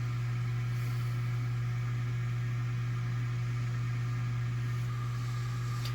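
Steady low background hum with faint hiss, unchanging throughout.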